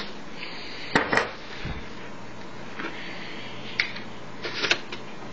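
Plastic jug of eggnog being shaken by hand: a few knocks and clatters about a second in and again near the end, over a steady hiss.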